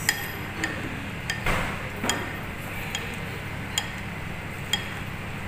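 Chopsticks and a ceramic spoon clinking against a ceramic bowl of noodle soup as the noodles are mixed: about seven light, irregularly spaced clinks, over a steady low hum.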